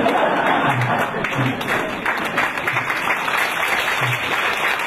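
Audience applauding: many hands clapping together in a dense, even patter that keeps up at the same loudness throughout.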